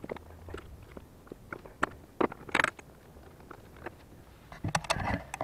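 Scattered small clicks, taps and scrapes of hands and tools working under a scooter's engine while its spark plug is taken out, busiest about two and a half seconds in and again near the end.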